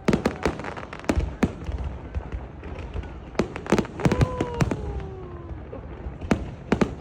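Fireworks going off: a run of sharp bangs and crackles at irregular intervals, thickest about three and a half to four and a half seconds in.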